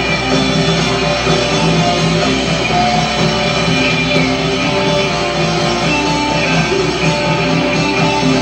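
Rock band playing live in an instrumental passage: electric guitar over bass, drums and keyboard, at a steady loud level.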